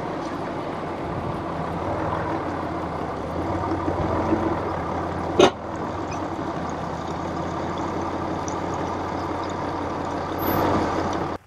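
Land Rover Discovery's engine running steadily at low speed as it crawls over a rocky off-road track, with one sharp knock about five and a half seconds in.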